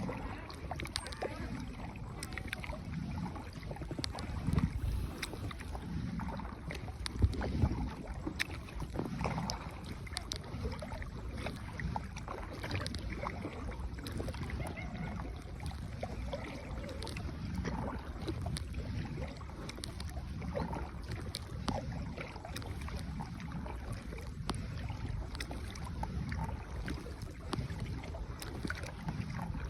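A paddled boat on the water: paddle strokes and water sounds with scattered knocks, over a steady rumble of wind on the microphone.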